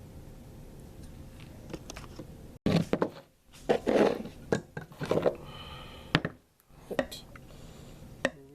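Metal gun parts and tools being handled on a workbench: irregular knocks, clatter and scrapes in several short clusters, with a brief metallic ring about halfway through. They are readying the AR-15 gas block and its taper pin for fitting.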